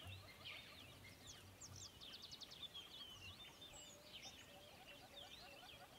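Faint background birdsong: many small birds chirping in short, high calls, with a quick run of repeated notes about two seconds in.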